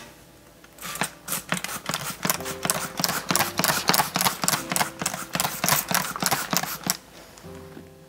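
Plastic trigger spray bottle squirted over and over in quick hissing sprays, about five a second, onto a microfibre towel. The spraying starts about a second in and stops about seven seconds in.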